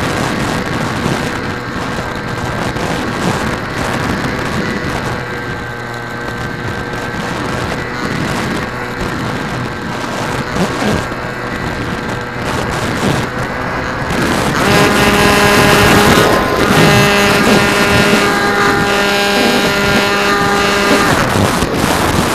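RC airplane's motor and propeller running steadily, heard from the onboard camera with wind rushing over the microphone. About two-thirds through, the motor sound gets louder, with several steady tones.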